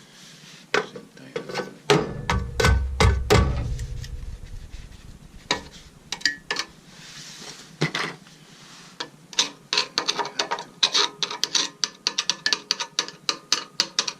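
Hand tools being worked on an oil burner: a string of sharp clicks and knocks, with heavy thumps about two to four seconds in and a fast run of ratchet-like clicking over the last five seconds.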